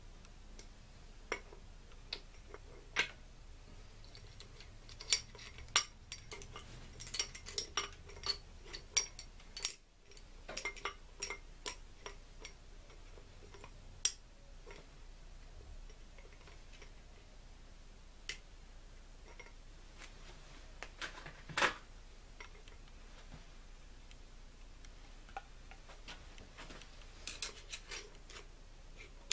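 Small metallic clicks and taps in irregular clusters as a T-90 transmission's front bearing retainer is shifted and the countershaft locking plate is fitted against the case.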